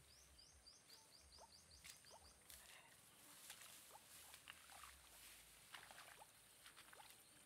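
Near silence: faint outdoor ambience with a quick run of about a dozen short, high chirps in the first two seconds, then scattered soft rustles and clicks.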